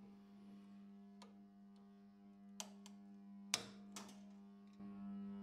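A few faint metallic clicks as an adjustable wrench grips and knocks against the stub of a broken tap snapped off in its hole, the sharpest one about three and a half seconds in.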